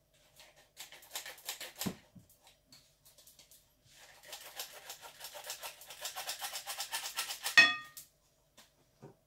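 Hand-held metal flour sifter being worked over a bowl, rapid clicking as flour is sifted through its mesh, in two runs, the second longer. Near the end comes a loud metallic knock with a short ring.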